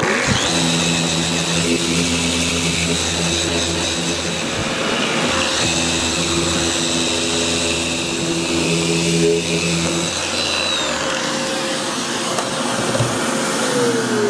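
Electric random orbital sander with dust extraction running steadily while sanding a wooden frame. Near the end it is switched off, and its whine falls in pitch as it winds down.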